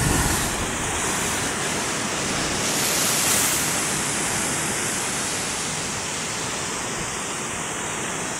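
Heavy storm surf breaking on a rocky shore: a continuous rush of white water pouring over and around the rocks, swelling about three seconds in.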